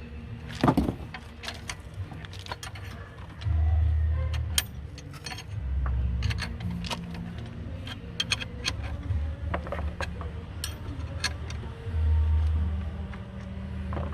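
Metal tools clicking and clinking irregularly as the coil-spring compressor on a strut is tightened a little at a time. A few bursts of low rumble, each about a second long, come in along with the clicks.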